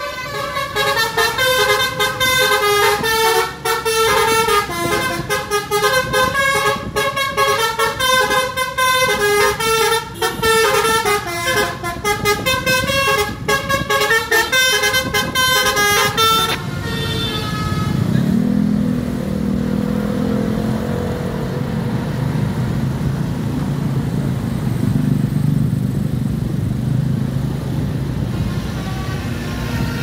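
Telolet basuri bus horn playing a quick multi-note tune for about sixteen and a half seconds, then stopping abruptly. After it, a bus engine revs up with a rising note and runs on steadily.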